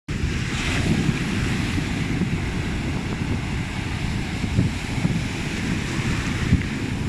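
Wind buffeting the microphone over the steady wash of sea surf. The gusts make a loud, uneven low rumble.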